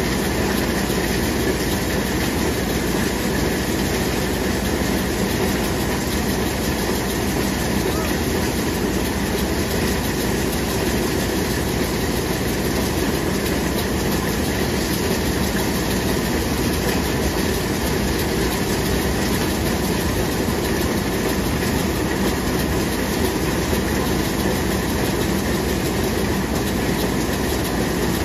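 Maize thresher powered by a Massey Ferguson tractor running steadily under load as cobs are fed in, a continuous loud mechanical noise with the tractor's engine beneath it.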